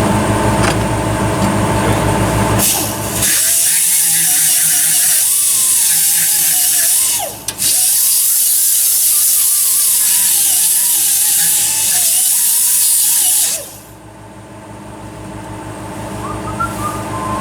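High-speed pneumatic tool working sheet metal: a loud airy hiss with a whine that wavers and dips under load. It starts a few seconds in, pauses briefly midway, and stops near the end. A steady low hum runs before it starts.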